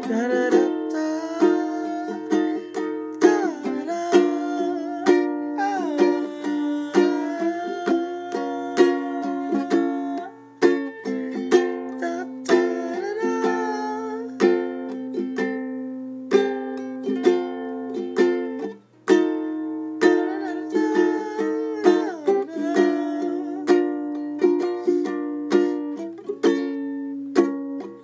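Music: a melody of plucked string notes struck at a steady pace over sustained held tones.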